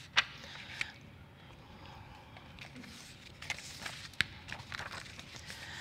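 Quiet room tone of a conference hall with a few scattered soft clicks and knocks, the sharpest just after the start and another about four seconds in.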